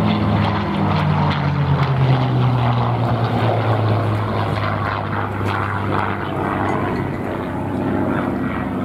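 P-51 Mustang's Packard Merlin V-12 engine running loud as the fighter flies past, its pitch dropping over the first few seconds and then holding steady as it pulls up into a climb.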